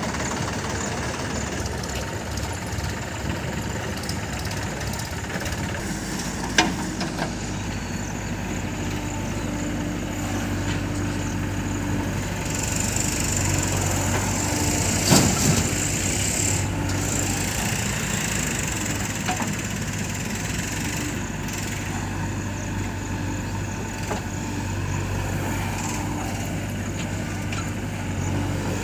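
Diesel engine of a backhoe loader running steadily while it works loading mud, with a sharp knock about six seconds in and a louder crack around the middle.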